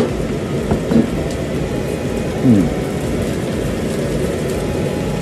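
Ventilation fan running with a steady, loud whooshing rumble that covers everything else. A couple of brief murmured voice sounds come through about a second in and again near the middle.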